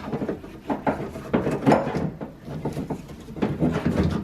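Irregular plastic clicks, knocks and rattles as the plastic rear frame of a 2012–2017 Toyota Camry outside door handle is popped off the door and handled.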